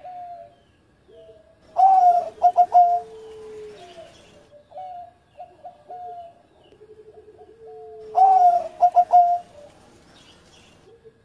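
Zebra dove (perkutut) singing its cooing song: two loud phrases about six seconds apart, each opening with a drawn-out coo and breaking into quick stuttering notes. Softer coos from other doves overlap throughout.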